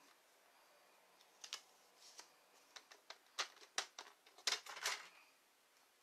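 Stampin' Up! paper trimmer cutting cardstock, with the paper being handled: a series of short, scratchy strokes and clicks, the loudest a little over halfway through.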